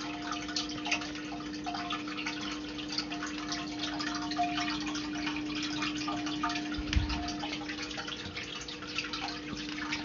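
Water trickling and dripping in many small, quick splashes over a steady low hum, with a soft low thump about seven seconds in.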